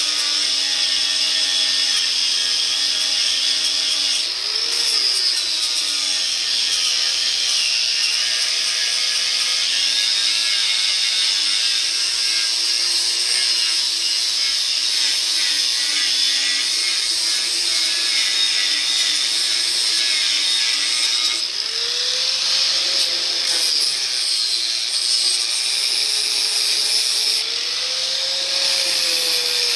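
Electric angle grinder grinding welds flush on a steel truck frame: a continuous harsh grinding with the motor's whine wavering up and down in pitch as the disc is worked over the metal.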